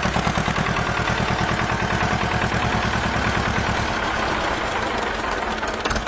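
Tractor engine idling with a fast, even chugging of about seven beats a second.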